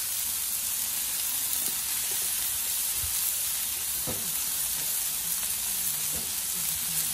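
Thin smashed beef burger patties frying on a hot Blackstone flat-top griddle, a steady even sizzle.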